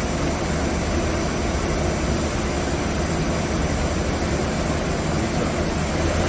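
Hwacheon Hi Tech 450B CNC lathe running: a steady machine noise with a low hum underneath.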